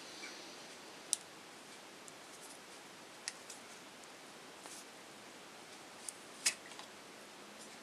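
Handling of an Olympus Zuiko 50mm f/1.8 lens on an Olympus OM20 35mm SLR: a few faint, sharp clicks as fingers grip the lens and turn it on its bayonet mount to take it off. The loudest click is about six and a half seconds in.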